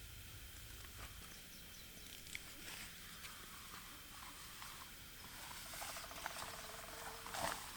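Soft rustling and scattered light clicks of things being handled, then a zipper being pulled near the end.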